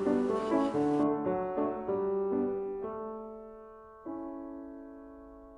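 Background piano music: a light tune of quick, short notes that slows down and ends on a chord struck about four seconds in, left to fade out.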